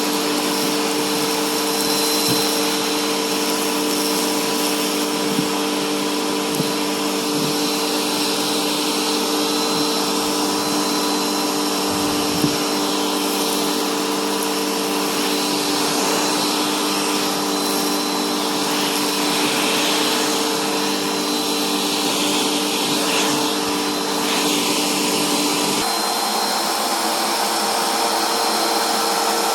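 Bissell bagless vacuum cleaner running steadily over carpet: a constant motor hum and airflow rush with a few small clicks of debris. The motor's hum changes pitch near the end.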